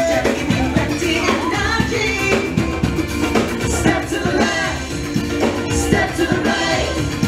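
Live carnival street band playing upbeat Latin-style dance music, with a steady drum beat and singing.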